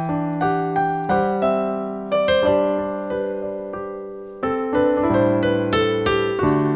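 Piano accompaniment playing a slow ballad passage alone: chords and melody notes are struck one after another and left to fade, with no harmonica.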